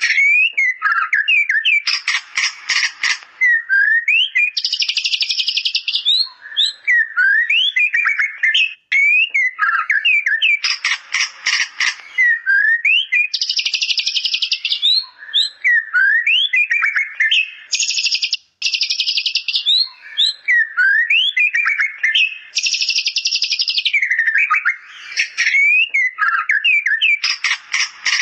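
White-rumped shama (murai batu) singing: clear whistled glides alternate with rapid chattering trills in the style of a bar-winged prinia (ciblek), which it has learned into its song. The same phrase sequence comes round about every nine seconds.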